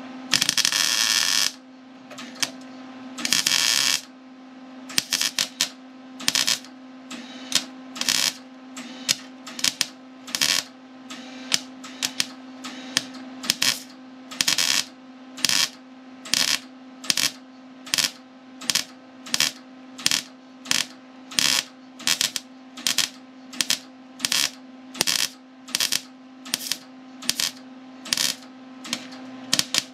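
MIG welder stitch-welding thin sheet-steel body panel: two arc runs of about a second each near the start, then a long string of short arc bursts, roughly one and a half to two a second, as the seam is built up from small tack welds. A steady hum runs underneath.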